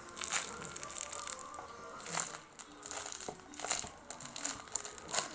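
Plastic packaging of a squishy toy crinkling in short bursts, about four times, as it is handled and opened.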